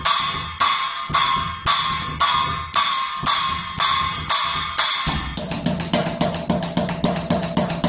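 Drum sounds from a homemade electronic drum kit being played: bright, ringing hits about twice a second, switching about five seconds in to a faster run of short, lower-pitched drum hits.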